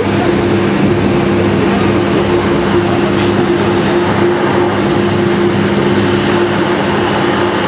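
KiHa 58 diesel railcar's DMH17H engines running steadily as the train travels at speed, heard from inside the passenger cabin. A constant drone with two held tones over the rumble of the wheels on the rails.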